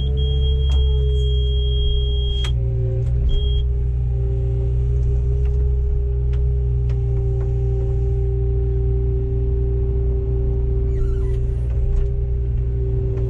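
Komatsu PW160 wheeled excavator's diesel engine running steadily with a constant whine over it, heard from the operator's seat. A high electronic beep sounds steadily for about the first two and a half seconds and once more, briefly, about a second later; scattered clicks and knocks.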